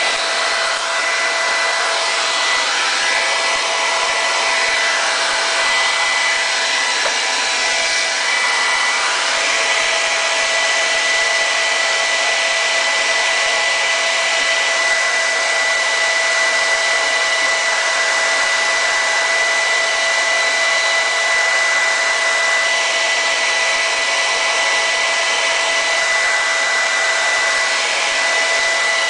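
Hand-held hair dryer running steadily, an even rush of air with a steady high whine, blowing hot air onto a vinyl sticker on a motorcycle fairing to soften its adhesive for peeling.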